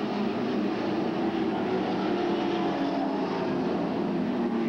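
Stock car engines running on the track, a steady drone with several wavering pitched tones.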